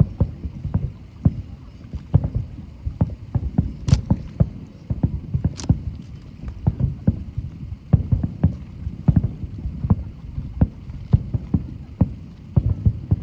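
Fireworks bursting in a rapid, irregular barrage of low booms, several a second, with a couple of sharper cracks.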